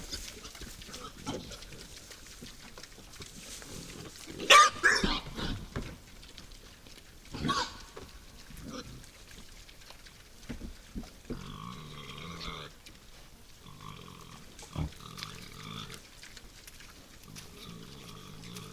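Wild boars calling: a loud squeal about four and a half seconds in, a shorter squeal about three seconds later, then several quieter pitched grunting calls.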